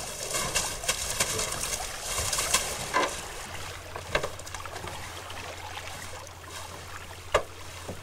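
Wet gill net being hauled into a small metal rowboat, water trickling and dripping off the mesh, with three sharp knocks against the boat, the loudest near the end.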